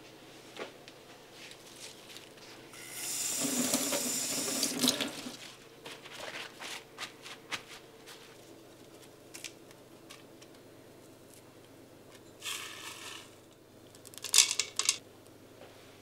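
Tap water running for about two seconds while fresh basil is rinsed, then soft rustles and taps of paper towel as the leaves are patted dry. Near the end come a brief noise and a few short, louder clatters.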